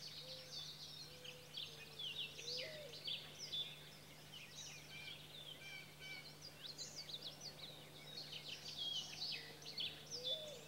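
Faint birdsong from several small birds: many quick, high chirps and trills throughout, with an occasional lower wavering whistle over a faint steady hum.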